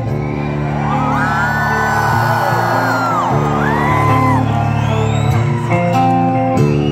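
Live rock band playing loud, sustained distorted electric guitar chords with drums, amplified through a concert PA in a large hall. Long whoops ring out over the music during the first few seconds.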